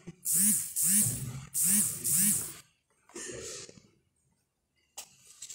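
A person's voice crying out loudly in four rising-and-falling wails, close together in the first two and a half seconds, then shorter, quieter cries: mourning wails.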